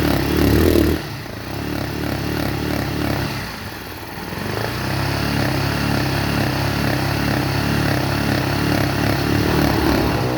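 Yamaha Factor 150 single-cylinder four-stroke engine running and being revved. It runs high for about a second, drops back, sags lowest around four seconds in, then picks up again and holds steady. The bike has a shorted stator, which the owner blames for a turbine-like whine he had taken for a bearing.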